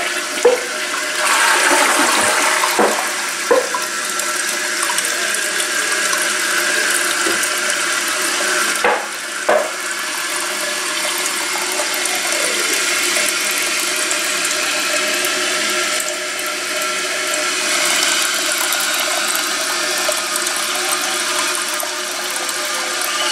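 Proflo toilet flushing, then its tank refilling through the fill valve: a steady rush of running water, with a few knocks in the first few seconds and two more about nine seconds in.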